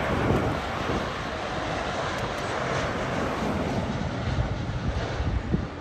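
Airbus A330-200 twin-engine jet airliner passing low on its landing, a broad jet roar whose high hiss fades away after about four seconds, leaving a low rumble.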